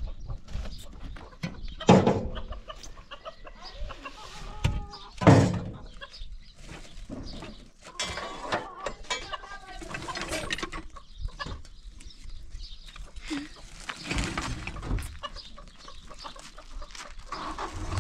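Chickens clucking, with a few sharp knocks; the two loudest come about two and five seconds in.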